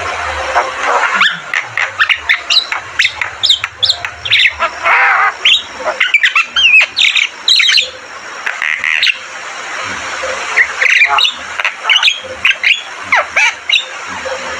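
Javan mynas calling: a dense run of harsh squawks, chirps and whistles, thinning out about halfway through and picking up again near the end.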